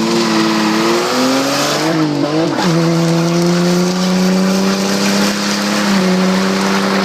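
A 1988 VL Commodore's RB30E straight-six is held at high revs with the tyres spinning in a skid. The revs climb over the first two seconds, wobble briefly, then hold steady and drop away near the end.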